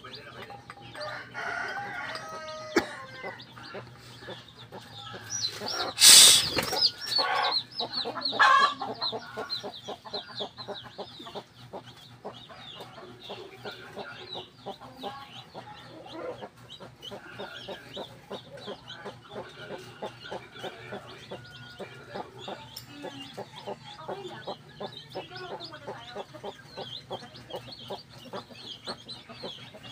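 Philippine native chickens: a brood of chicks peeping in rapid high cheeps throughout while a hen clucks, and a rooster crows loudly about six seconds in.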